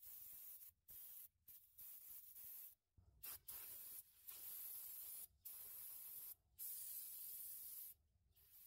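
Aerosol brake cleaner spraying in a string of faint hissing bursts, each about half a second to a second long, washing brake dust off the rear drum brake shoes and springs.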